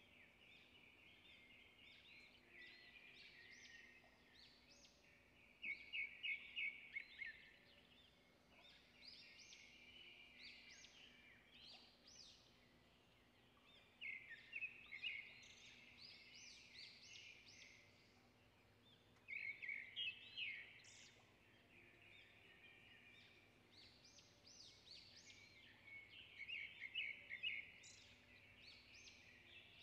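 Songbirds chirping and twittering high and thin. Louder bursts of rapid chirps, each a second or two long, come about every six seconds, with softer twittering in between.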